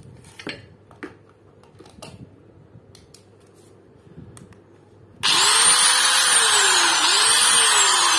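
Light handling clicks, then about five seconds in a QUASA CYG-47200 720 W 4-inch angle grinder is switched on and runs unloaded with no disc fitted. Its motor whine climbs, dips and climbs again, and starts to wind down near the end.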